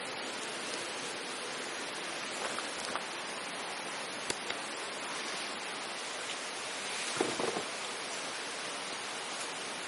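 Steady rushing noise of running water or rain. A few faint ticks and a short cluster of knocks come about seven seconds in.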